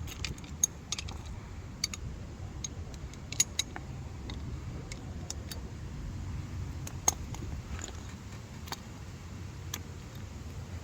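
Scattered sharp metallic clicks and clinks of hand tools being handled, a socket and ratchet being picked out and fitted, over a low steady rumble.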